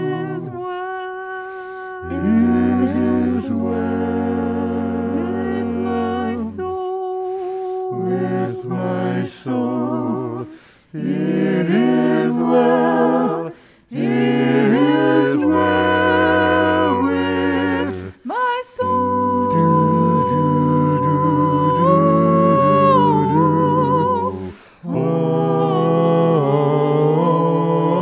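A small mixed vocal ensemble singing a slow piece in sustained chords, holding long notes, with brief breaks between phrases.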